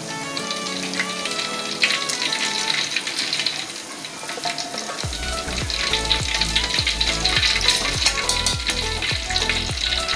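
Tofu balls deep-frying in hot oil in a wok, the oil sizzling and crackling steadily. Background music plays under it, and a deep bass beat comes in about halfway through.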